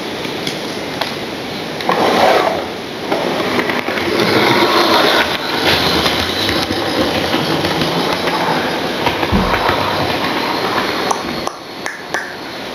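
Model railway locomotive running along the track and passing close by, its motor and wheels on the rails growing louder from about two seconds in and fading near the end.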